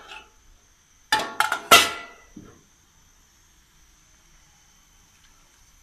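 Aluminium pot lid being lifted off and handled, clanking against metal: four sharp clanks in quick succession about a second in, then one softer knock.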